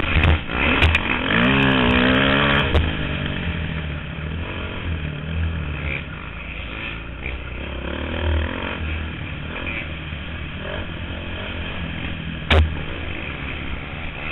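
Dirt bike engine heard from on board, revving up and down hard through the first few seconds, then running at lower, steadier revs. A sharp knock comes near the end.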